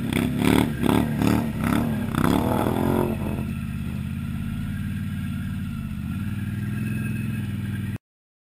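A modified Can-Am Outlander ATV's V-twin engine running while wading through deep water. For about the first three seconds it pulses in quick surges, about two a second, then it settles to steady running. The sound cuts off suddenly near the end.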